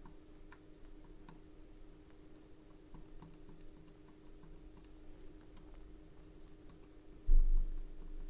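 Faint, irregular light clicks and taps over a steady hum, with one heavy low thump about seven seconds in.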